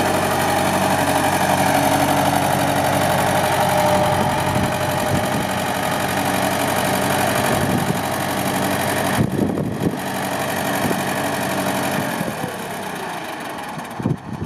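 Ford 6600 tractor's three-cylinder diesel engine running steadily at low revs. Its sound eases down near the end, with a couple of sharp knocks.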